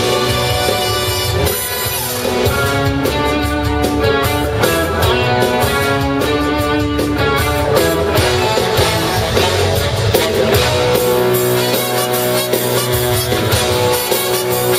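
Live soul band playing a song loudly over the arena PA, with drum kit, electric guitar and a horn section.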